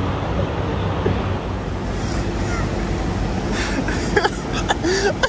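Water gushing from a sheared-off fire hydrant: a steady rushing spray that shoots high into the air.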